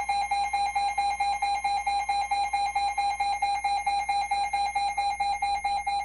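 Weather alert radio receiver sounding its alarm: a loud, rapidly pulsing high electronic beep, the signal that a weather warning has been received.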